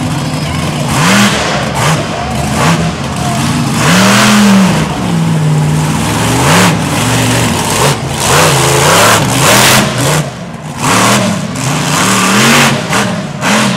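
Monster truck engine revving hard again and again, its pitch climbing and dropping in a series of short blips and longer pulls.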